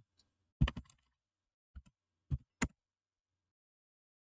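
A handful of separate computer keyboard keystrokes, scattered irregularly over the first three seconds.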